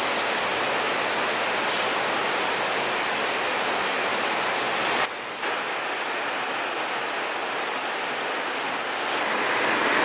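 Steady rain, an even hiss that briefly drops away about halfway through.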